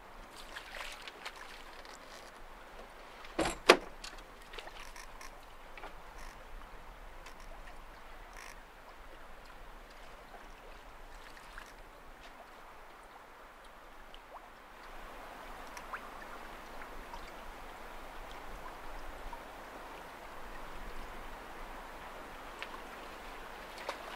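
Water swishing and lapping along a small sailing yacht's hull as a sounding pole is dipped over the side, with scattered light knocks and one sharp double knock about three and a half seconds in. The water sound grows a little louder about halfway through.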